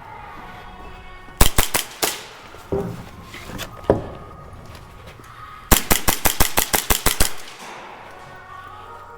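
Airsoft guns firing in the indoor arena: a short burst of a few sharp shots about a second and a half in, a couple of single shots, then a longer rapid burst of about a dozen shots around the middle.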